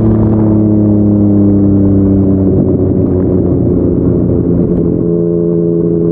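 Yamaha MT-09 three-cylinder engine through a Yoshimura R55 slip-on exhaust, its note falling slowly as the bike rides along. The sound turns rough about two and a half seconds in, then settles at a lower steady pitch near the end.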